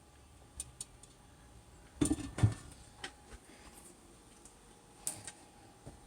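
Scattered light clinks and knocks of kitchen dishes and utensils, with a louder clatter about two seconds in.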